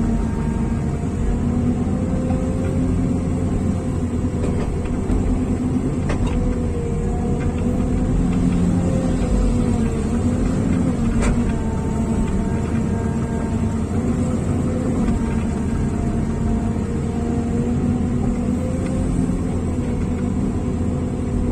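Diesel engine of a heavy earthmoving machine running steadily under work, its pitch rising and falling slightly as it takes load. Two sharp metallic clicks stand out, about six and eleven seconds in.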